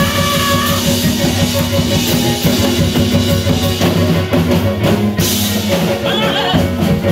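Live church worship music played loud through the PA: a drum kit keeps a busy beat over sustained bass notes, and a woman sings into a microphone.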